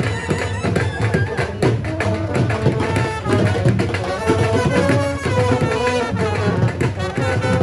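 Dhamal music: a dense drum beat under a held, wavering melody line.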